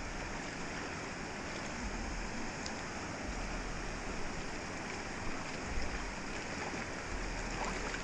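Steady rush of a shallow creek flowing over sand and small cascades, with low rumbles coming and going.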